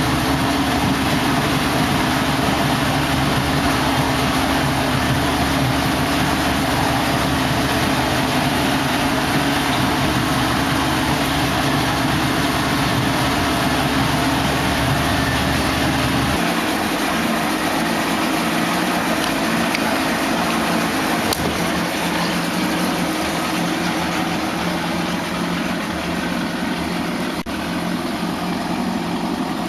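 1979 Johnson 100 hp two-stroke outboard motor running steadily. About sixteen seconds in, the deepest part of the rumble drops away suddenly while the rest of the engine noise carries on.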